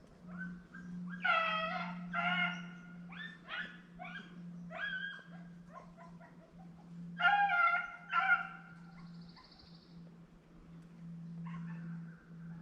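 Rabbit-hunting hounds baying: a run of pitched, drawn-out barks and yips about a second in, a second burst around seven seconds, and a fainter call near the end.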